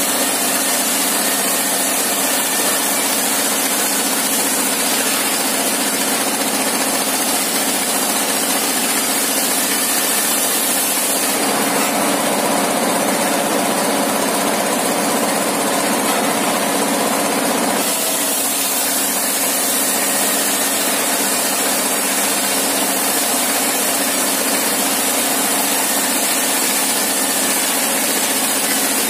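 Engine-driven sawmill circular saw table running steadily while a wooden beam is ripped into thin planks. The sound changes for several seconds in the middle, then settles back to the same steady running.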